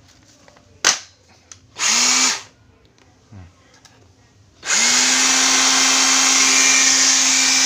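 Bosch GBH 24V cordless SDS rotary hammer: a click, a half-second burst of the motor spinning up about two seconds in, then from about five seconds in it runs steadily at full speed. It spins without hammer blows, in drill-only mode, because its drill/hammer selector is stuck.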